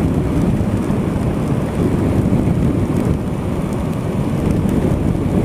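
Wind and rain rush on a helmet-mounted action camera's microphone while riding a Honda Africa Twin CRF1000L motorcycle at about 120 km/h in the rain: a steady, loud low roar.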